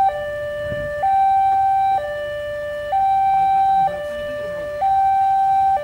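Railway level-crossing warning alarm sounding an electronic two-tone signal: a higher note and a lower note take turns, each held about a second, the higher one louder. It means the barrier is down and the crossing is closed for a train.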